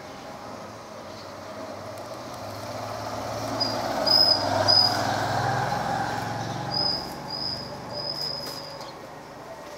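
A motor vehicle driving past, its sound building to a peak about halfway through and then fading. Short high chirps come in two clusters over it, around the peak and again a little later.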